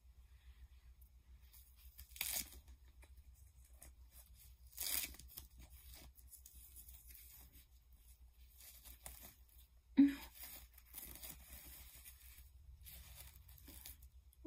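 A diaper's fastening tabs being pulled open: two short tearing sounds, about two and five seconds in. About ten seconds in comes a sudden knock, the loudest sound, followed by rustling.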